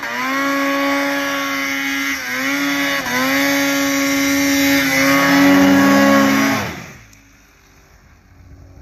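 Arctic Cat Alpha One snowmobile's two-stroke engine running hard as the sled climbs through deep powder. The pitch dips briefly and recovers a few times as the engine bogs in the snow. About six and a half seconds in, the revs drop away quickly and the engine sound dies down as the sled gets stuck.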